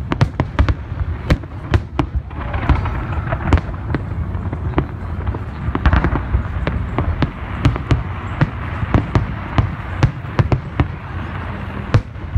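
Fireworks display: aerial shells bursting one after another, several sharp bangs a second over a continuous low rumble.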